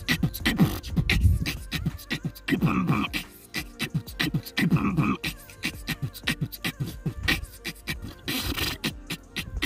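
Beatboxing: a voice making rapid, drum-like clicks and snares over low kick sounds in a steady rhythm, with short hummed bass sweeps.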